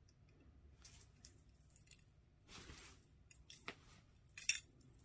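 Cat toy jingling and rattling in irregular bursts as cats bat and wrestle with it. It starts about a second in and is loudest near the end.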